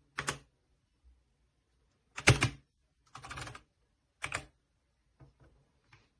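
Keys of a Redragon K617 60% mechanical keyboard being typed on in short, quick flurries of clacks, one roughly every second. The loudest flurry comes about two seconds in, and fainter taps come near the end.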